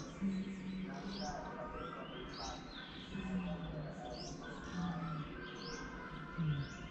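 Small birds chirping repeatedly, with four short low hums, each under a second, some falling slightly in pitch.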